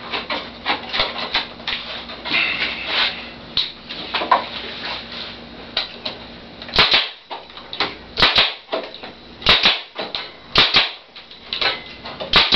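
Pneumatic brad nailer firing 5/8-inch brad nails into a wooden beehive frame, fastening the strip that holds the wax foundation in place. About six sharp shots come roughly a second apart in the second half, after a few seconds of light clicks and knocks as the frame and nailer are handled.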